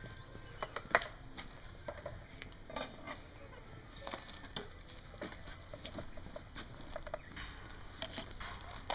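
Scattered light clicks and crackles as a crucible of molten aluminum is lifted out of a small melting furnace with steel tongs and carried to the mold.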